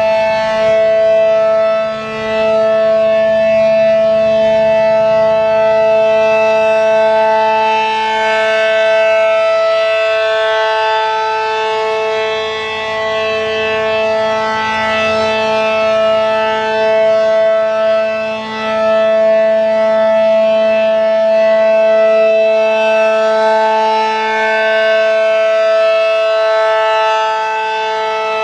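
ACA Allertor 125 outdoor warning siren, an 8/12-port dual-tone siren fitted with a Penetrator shroud, sounding its full-alert steady chord. The pitch holds while the loudness swells and fades slowly as the siren head turns.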